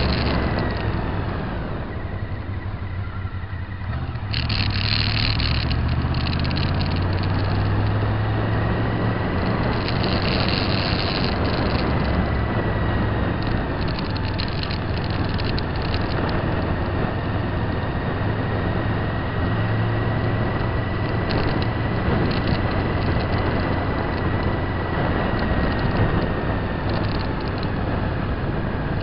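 Steady running noise of a vehicle moving along town streets, heard from a camera mounted on it: a continuous rushing noise over a low hum. The level dips briefly about two seconds in, then picks up again.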